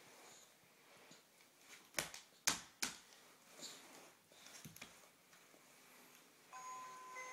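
A baby's hands slapping and pressing a children's musical sound book, a few sharp taps, the loudest about two and a half seconds in. Near the end the book's button sets off its electronic tune, a string of steady beeping notes.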